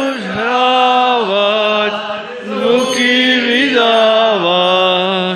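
One voice chanting a drawn-out mock funeral lament in long held notes, each sliding down at its end, with no clear words.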